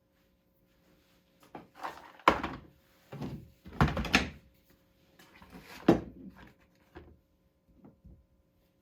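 Knocks and clatters of tools and small wooden parts being picked up and set down on a workbench, several separate thuds with short rustles between them, the loudest about two, four and six seconds in.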